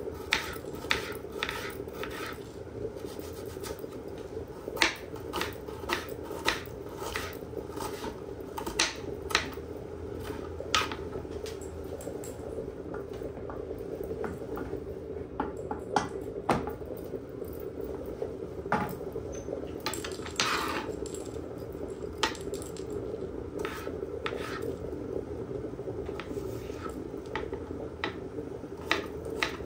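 Kitchen knife chopping an onion on a plastic cutting board: irregular sharp taps of the blade on the board, with a brief scrape about two-thirds of the way through. A steady low hum runs beneath.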